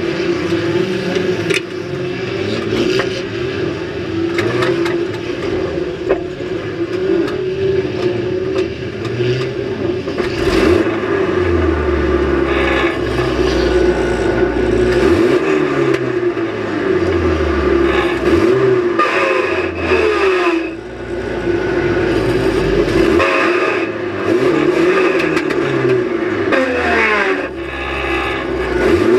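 Banger race car's engine heard from inside the stripped cabin, revving up and falling back again and again, with scattered knocks and clatter of metal throughout.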